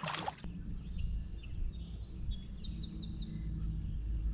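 A brief splash at the start as a released fish hits the water, then small birds chirping in short, quick notes, including a rapid run of four, over a steady low rumble.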